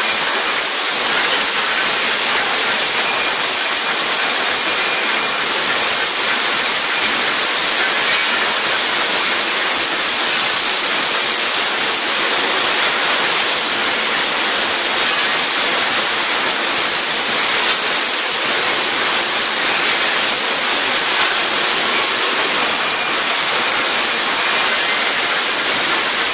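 Factory-floor noise from automatic pasta packaging and baling machinery: a loud, steady, even hiss.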